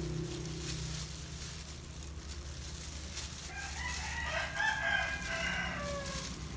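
A rooster crowing once, starting about three and a half seconds in and lasting close to three seconds, its pitch dropping at the end, over a steady low hum and faint crinkling of plastic gloves working wet dyed hair.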